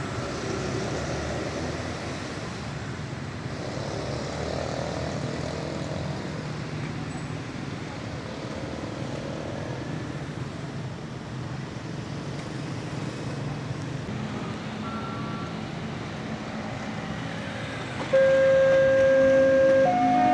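Steady outdoor traffic hum with a motorcycle engine running beside the railway tracks. About 18 seconds in, a loud electronic level-crossing warning signal starts abruptly, sounding steady tones that step between pitches, as the crossing signals that a train is approaching.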